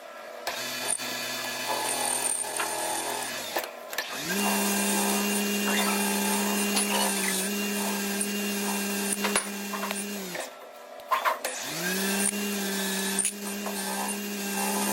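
CNC lathe machining with a carbide cutting tool: the spindle winds up to a steady whine about four seconds in, runs over a hiss of cutting noise, winds down about ten seconds in, then winds up again about twelve seconds in.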